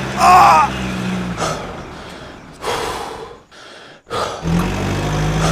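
A low, steady truck-engine hum that cuts out about a second in and comes back near the end, with a few short whooshing noise bursts in the gap and a brief cry-like call at the very start.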